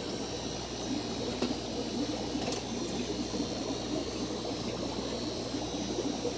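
Aquarium water bubbling steadily from an air-driven media filter, air bubbles breaking at the surface, over a steady low hum.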